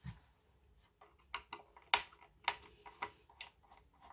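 Irregular light clicks and taps of a screwdriver and fingers working at the parts of a TV power supply circuit board, about a dozen, the sharpest about two seconds in.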